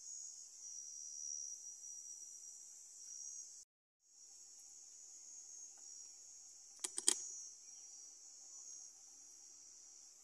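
Steady high-pitched chorus of crickets or similar insects, which drops out for a moment about a third of the way in. A bit past the middle, three sharp clicks in quick succession.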